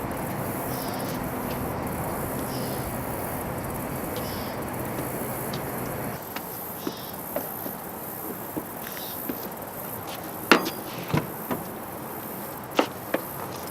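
A car engine running steadily with a low hum, shutting off about six seconds in. Scattered sharp knocks and clicks follow, over insects buzzing about once a second.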